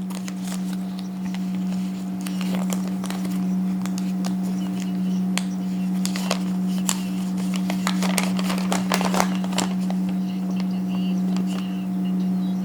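Paper sheets rustling and crinkling as they are handled, with a run of denser crackles about eight to nine seconds in, over a steady low hum.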